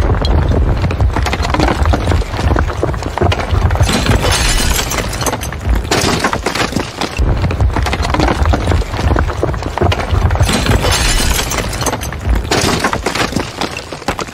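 Building-collapse sound effect: a loud, dense, continuous crashing and crumbling of breaking debris over a deep rumble, tapering off near the end.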